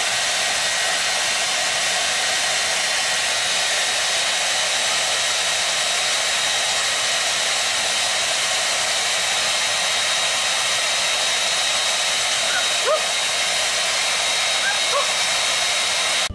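Handheld hair dryer running steadily: an even rushing blow of air with a faint high whine from its motor. Two brief rising squeaks near the end.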